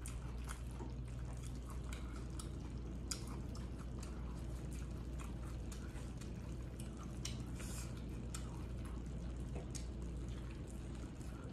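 Quiet eating sounds: wet chewing and many small irregular clicks of chopsticks picking food from a stainless steel pan while a lettuce wrap is put together, over a steady low hum.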